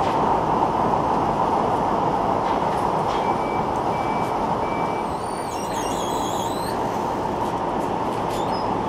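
Textile machinery running with a steady, loud mechanical noise, with a few short high chirps about halfway through.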